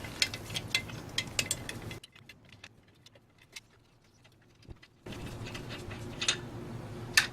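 Light metallic clicks and clinks of car wheel lug nuts being undone with the lug wrench, several a second for about the first two seconds. Then comes a near-silent gap, then a couple of single clicks near the end.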